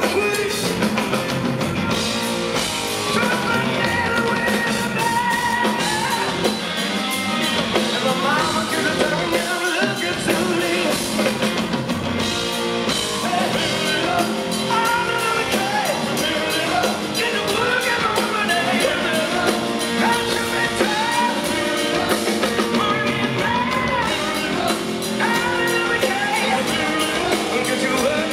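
Rock band playing live: electric guitar, drum kit and a man singing, loud and continuous.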